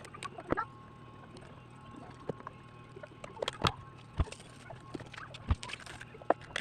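Irregular small clicks and taps, a few sharper than the rest, from handling tools and phone parts during a screen repair, over a faint steady hum.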